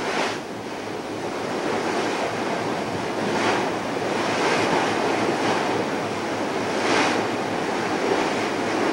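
Open-sea water rushing and washing, mixed with wind on the microphone, swelling and easing every few seconds.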